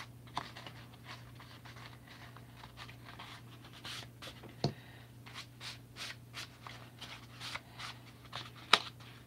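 Hands rubbing and pressing freshly glued black craft-foam (goma eva) trouser pieces: a run of faint scratches and rustles, with a sharp knock about four and a half seconds in and a louder one near the end.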